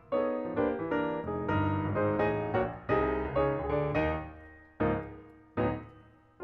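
Background piano music: a steady run of struck chords, then two single chords near the end left to ring out and fade.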